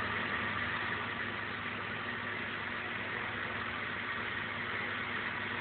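Electric blade sharpener's motor running steadily, a constant hum with a hissing grind and no strokes or breaks.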